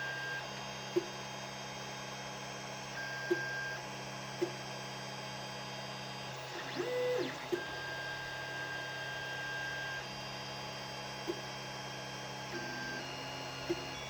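Creality Ender 5 Plus 3D printer printing: its stepper motors whine in steady tones that jump to new pitches as the print head changes speed and direction, over a steady low hum, with a few short ticks. About seven seconds in, the motors swoop up and back down in pitch during a quick move.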